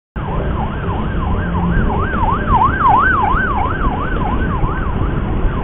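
An emergency-vehicle siren wails rapidly up and down, about three cycles a second, over a steady low rumble of road traffic and engines. It cuts in abruptly at the start.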